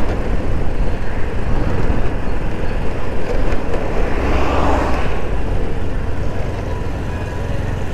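Road traffic noise: a steady rumble of motor vehicles that swells briefly about four to five seconds in.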